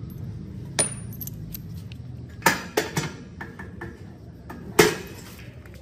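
Steel bolts, nuts and washers clinking against one another as they are handled, a handful of separate sharp metallic clinks.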